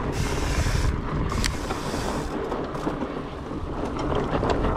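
Wind rumbling on the microphone over the rolling rattle of a fat-tyre mountain bike on a dirt trail, with scattered sharp clicks and knocks.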